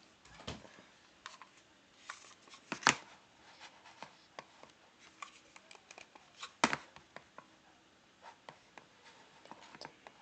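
Scattered light clicks and taps from a computer mouse and desk handling, with two sharper, louder clicks about three and seven seconds in.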